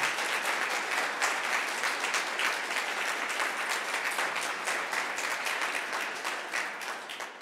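Audience applauding, many hands clapping together in a dense patter that tapers off near the end.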